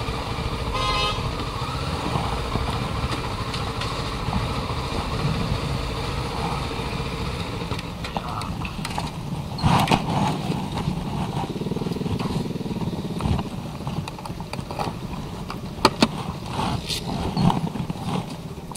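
Motorcycle engine running under a steady rush of noise on a chest-mounted camera's microphone, with a short vehicle horn toot about a second in. Several sharp knocks come in the second half.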